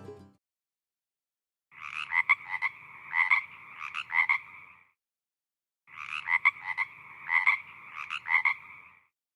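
Frog croaking: two identical passages of pulsed calls, each about three seconds long, with a pause between them.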